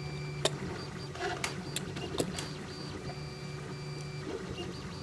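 CTC 3D printer printing: its stepper motors whine in steady tones that start, stop and change as the print head moves, over a low hum, with a few scattered clicks.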